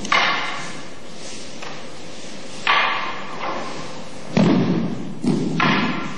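Bodies hitting the floor as partners are thrown with a long wooden staff (bō): a series of about five thuds, the heaviest three close together near the end, each trailing off briefly.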